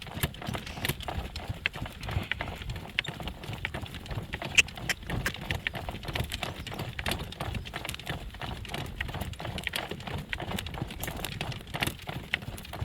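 Hoofbeats of a driving horse on the road: a steady run of clip-clops and sharp clicks over a low rumble.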